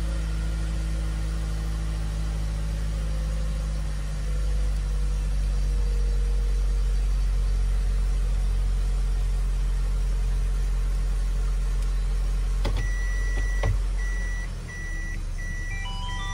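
Toyota Esquire (80-series) engine idling with a steady low hum just after starting. About thirteen seconds in there are clicks as the gear selector goes from P into R, and the cabin's reverse warning buzzer starts beeping over and over at one high pitch.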